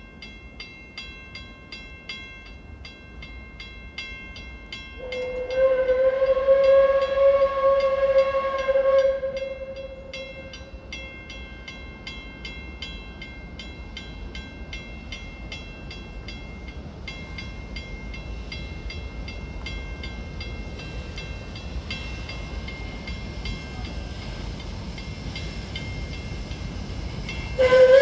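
Level crossing mechanical bell ringing with rapid, even strokes while a steam locomotive's whistle sounds one long blast about five seconds in, lasting some four seconds, then a short loud blast at the very end.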